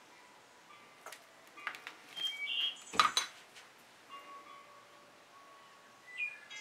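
Light metallic clinks with chime-like ringing tones, in a cluster of strikes between about one and three and a half seconds in, the loudest just after three seconds. Short bird-like chirps come near the end.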